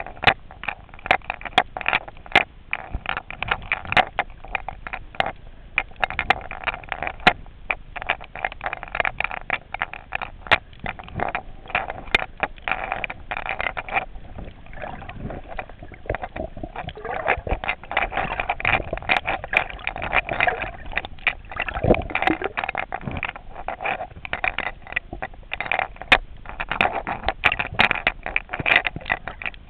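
Water sloshing and gurgling around the camera while snorkeling, with a dense crackle of sharp clicks throughout, fuller in a few stretches.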